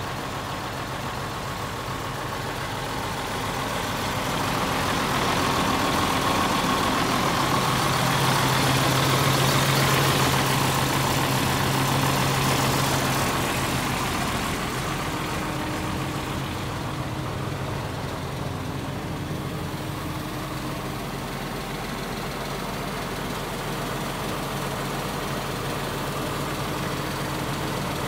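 John Deere 6830 tractor's six-cylinder diesel engine idling steadily. It grows louder towards the middle, then eases back.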